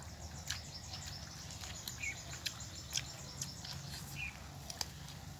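Outdoor ambience of insects chirring steadily, with two short bird chirps and a few sharp clicks.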